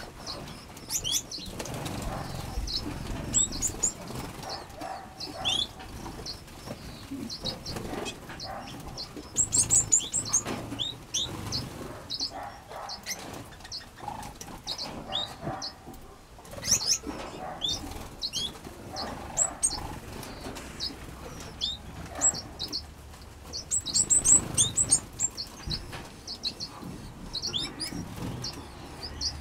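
Small aviary finches, Gouldian finches among them, chirping with many short high calls, with wings fluttering as birds fly between perches. The calling is busiest in two bursts, about a third of the way in and again near the end.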